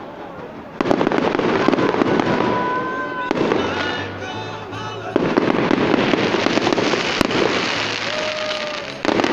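Fireworks display: a dense run of crackling, popping shell bursts. It grows suddenly louder with a fresh barrage about a second in and again around five seconds in.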